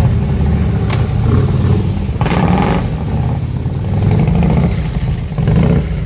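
Custom cruiser motorcycle engine running low and loud as the bike rides slowly past, with a brief louder rush of noise a little over two seconds in.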